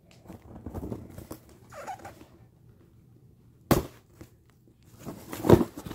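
Packaging being handled: soft rustling and crinkling for about two seconds, a sharp knock a little under four seconds in, and a louder rustling thump near the end.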